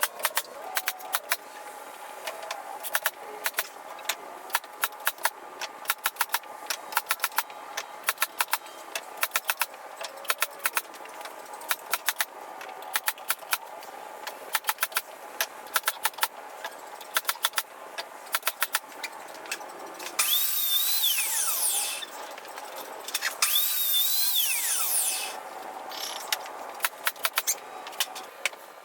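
Quick runs of sharp knocks and clicks. Then a power saw cuts through wooden fence boards twice, about two seconds each time, its motor whining up and winding down with each cut.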